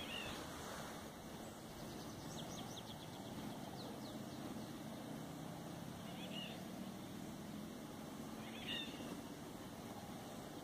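Eurasian golden oriole singing short fluting phrases three times: at the start, about six seconds in, and loudest near the end. A quick run of thin, high notes comes about two seconds in.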